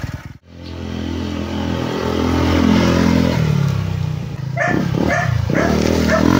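Honda PCX160 scooter's single-cylinder four-stroke engine running through an aftermarket JVT V3 exhaust set to its middle position, with its pitch stepping up partway through. From about two-thirds of the way in, a dog barks several times in quick succession over the engine.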